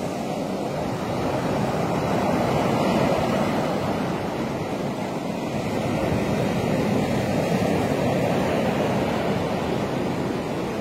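Surf breaking and washing up a sandy beach: a steady rush of waves that swells and eases a little.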